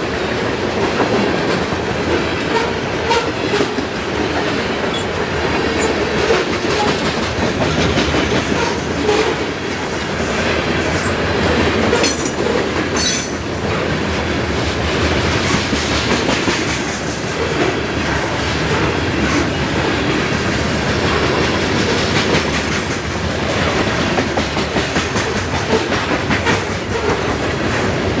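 A Norfolk Southern grain train of freight cars rolls past, with a steady rumble and wheels clicking over the rail joints.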